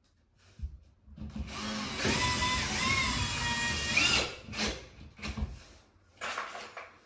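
Cordless drill-driver driving screws: one run of about three seconds with a motor whine that rises and dips in pitch, then a few short bursts near the end.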